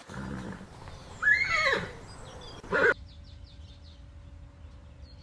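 Horse whinnying about a second in, a high call that falls in pitch, followed by a short loud sound just before three seconds in.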